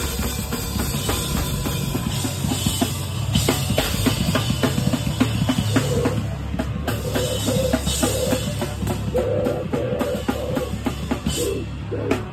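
Live rock band playing, heard close to the drum kit: rapid, dense drumming on kick, snare and cymbals over a steady bass, with held pitched tones joining in the second half.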